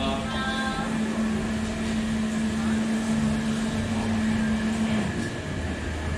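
A steady low hum on one pitch, held for about five seconds before it stops, over a constant background noise.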